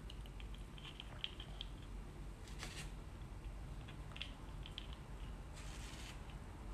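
Faint clicks and taps of small plastic toy accessories being handled, a miniature umbrella fitted into a tiny plastic handbag: a cluster of quick clicks in the first second and a half and more about four seconds in. A short soft rustle about six seconds in as the doll is picked up.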